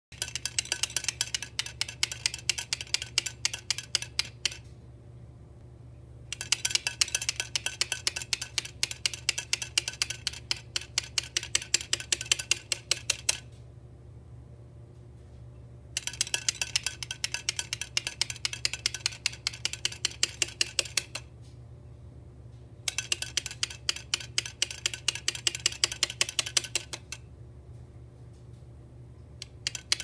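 Cockatiel tapping its beak rapidly against a hard surface, in bouts of a few seconds broken by short pauses.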